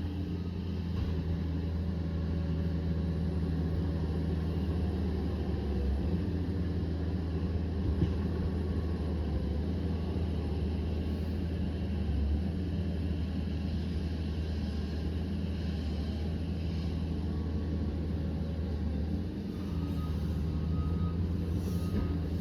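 Liebherr PR 744 crawler dozer's diesel engine running steadily, with its reversing alarm starting to beep in short repeated beeps near the end.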